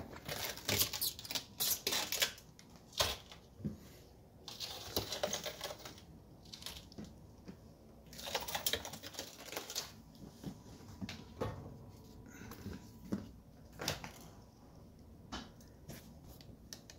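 Rubber door gasket of a Bosch dishwasher being pulled out of its channel around the tub by hand: bursts of rapid clicking and scraping, coming in clusters every second or two.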